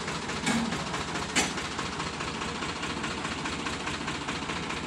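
Sonalika DI 750 tractor's diesel engine idling steadily, with a single sharp click about a second and a half in.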